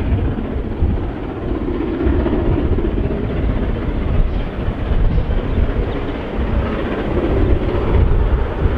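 Strong wind buffeting the microphone over the exhaust of New Zealand Railways Ka class 4-8-4 steam locomotive Ka942 working at speed as it approaches.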